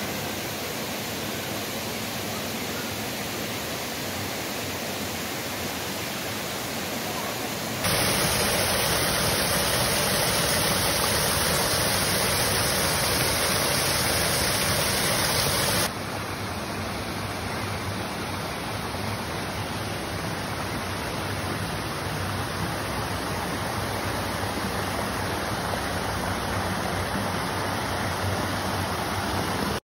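Small waterfalls and cascades of spring water pouring over rock ledges into pools: a steady rush of falling water. It changes abruptly twice, louder from about eight seconds in and softer again about halfway.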